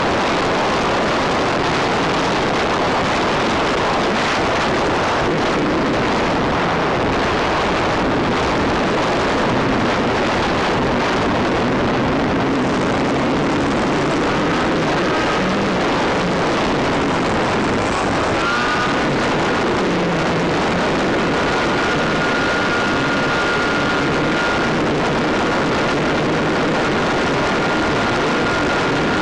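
Airflow hissing steadily over the onboard microphone of a small electric FPV model airplane in flight. Past the middle, a thin tone rises and then holds steady over the hiss as the electric motor is throttled up from a glide.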